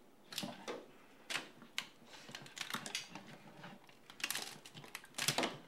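Irregular sharp clicks and light knocks of a live lobster's hard shell being handled, with the loudest cluster near the end.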